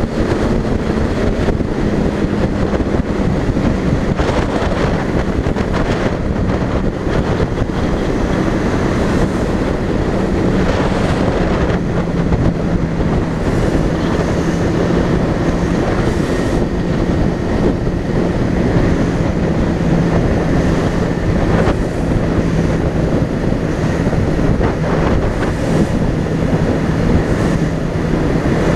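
Motorcycle cruising at highway speed: a steady engine drone under heavy wind rush over the microphone. The engine note sags slightly in the first few seconds, then holds steady.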